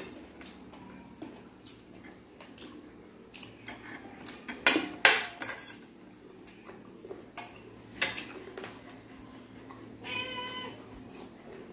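Eating at a table: spoon and dish clinks and clatters, with two louder sharp clatters about halfway through and another a few seconds later. A cat meows once, briefly, near the end.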